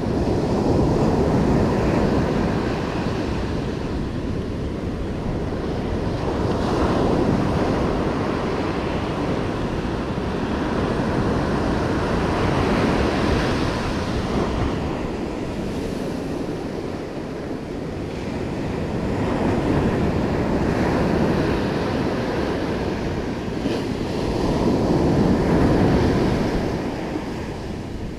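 Ocean surf breaking on a sandy beach: a steady wash of waves that swells and fades as each set rolls in, about every six seconds.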